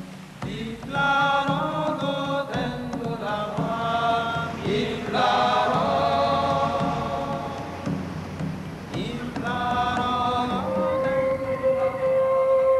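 Background music of a group of voices chanting in phrases, and near the end a long held note comes in.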